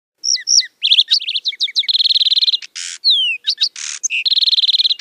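Lark sparrow singing one long song: a jumble of clear high notes and fast trills, with down-slurred whistles and harsh buzzy notes in the middle, ending on a trill.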